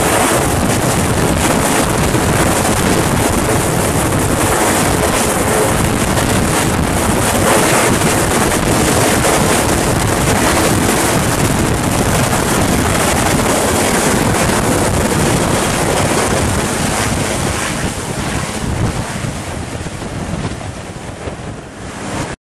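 Sikorsky S-61 helicopter lifting off: its main rotor and twin turboshaft engines at lift-off power, a loud dense roar with heavy wind noise on the microphone. The sound fades over the last few seconds as the helicopter climbs away.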